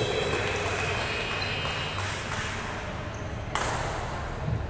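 Volleyball match sounds in a reverberant hall: a steady hubbub of players and onlookers, thin high squeaks in the first second and a half, and a sharp hit about three and a half seconds in.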